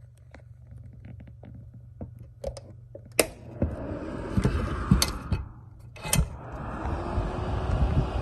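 Small electric space heater being switched with clicks. Its fan comes on as a steady rushing noise about three and a half seconds in, cuts out briefly after another click, and starts again.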